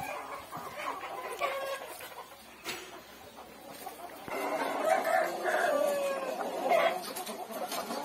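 Caged Aseel (Peruvidai) chickens clucking, with a rooster crowing; the calls grow louder and more crowded from about halfway through.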